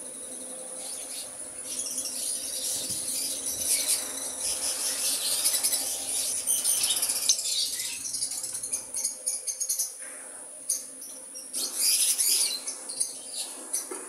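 Caged lovebirds chattering: a busy stream of high-pitched chirps and squeaks, with a louder flurry near the end.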